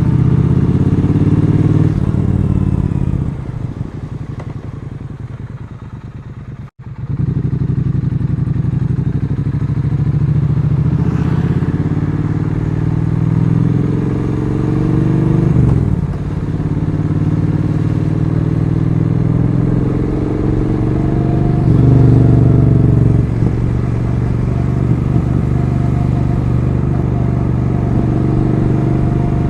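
Triumph Street Twin 900's parallel-twin engine under way, pulling up through the gears: the pitch climbs in each gear and drops back at each shift, several times over. A few seconds in the throttle is eased off and the engine runs quieter before pulling again.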